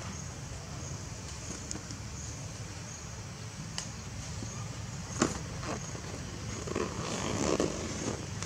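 Outdoor background noise: a steady low rumble with a faint high chirp repeating about every half second, a sharp click about five seconds in, and a brief rustle near the end.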